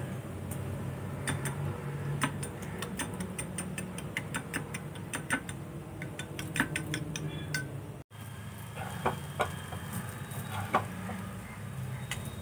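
A metal spoon beating eggs in a small glass bowl, clinking against the bowl several times a second over a steady low hum. After a brief break about eight seconds in, a few scattered clinks and knocks.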